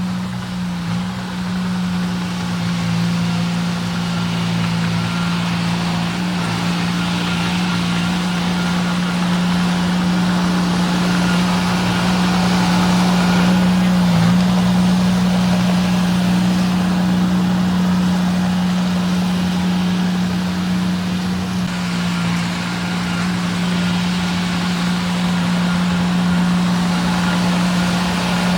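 Diesel engine of an earthmoving machine running at a steady speed, with a hiss that swells and fades several times.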